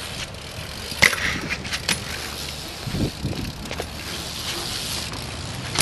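BMX bike rattling and knocking as it is ridden on a ramp, with a sharp metallic impact about a second in and a few duller knocks after it.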